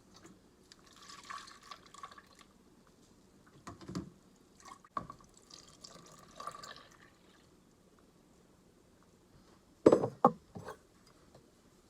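Instant pudding being poured into a bowl in two pours, each a second or so long. Several knocks about four to five seconds in, and a louder cluster of knocks about ten seconds in, are the packets or bowl being handled.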